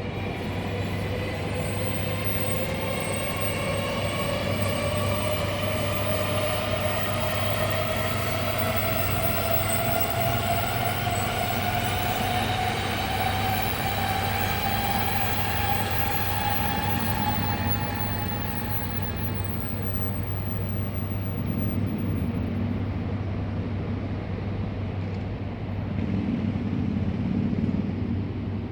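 Shinkansen bullet train pulling out of the station: its traction motor whine rises steadily in pitch as the train accelerates, then fades away after about twenty seconds. A low rumble swells near the end.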